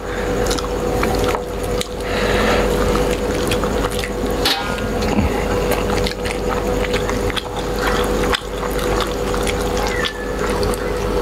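Fingers mixing rice with fish curry on steel plates, with wet squelching and small clicks, and chewing and lip-smacking close to the microphone. A steady low hum runs underneath.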